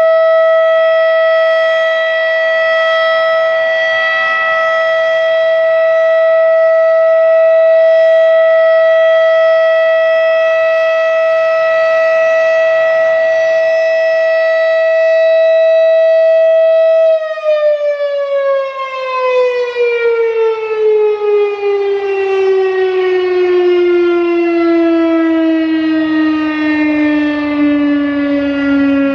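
Federal Signal RSH-10 Thunderbeam outdoor warning siren sounding a loud steady alert tone; about 17 seconds in, the tone starts to slide and the siren winds down, its pitch falling slowly and continuously as the rotor coasts at the end of the alert signal.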